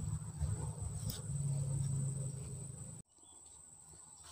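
Insects droning steadily at a high pitch in rural outdoor surroundings, over a low rumble. The rumble stops abruptly about three seconds in, and the insect drone carries on more quietly.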